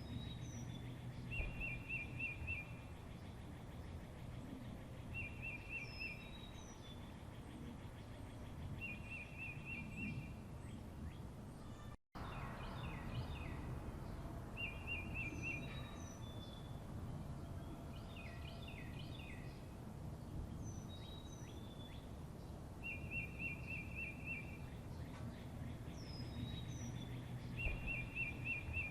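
Birds singing: a short rapid trill repeated every three to four seconds, high down-slurred whistles and clusters of chirps, over a low steady background rumble. The audio cuts out for an instant about twelve seconds in.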